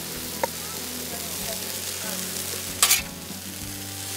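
Rice, eggs and scallions sizzling on a hot flat-top griddle, with a metal spatula chopping and scraping against the griddle's steel surface, loudest about three seconds in.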